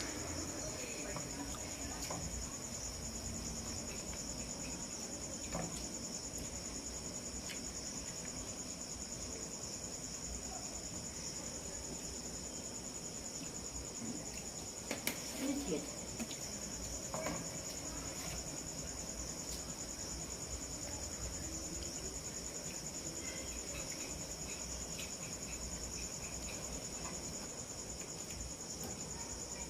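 Crickets trilling, a steady unbroken high chorus, with a few soft clicks and knocks around the middle.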